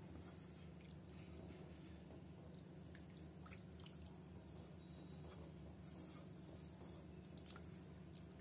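Faint sounds of a wooden spatula stirring thin sambar in a nonstick pan: soft liquid squishing and scattered light ticks, with two sharper ticks close together near the end, over a steady low hum.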